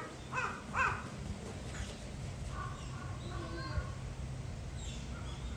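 Birds calling outdoors: two short harsh calls about half a second apart near the start, more calls in the middle, and thin falling high calls near the end, over a low steady background hum.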